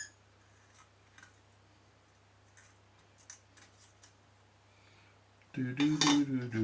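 Faint, scattered light clicks over a steady low hum, then, about five and a half seconds in, a loud pitched vocal sound from a man.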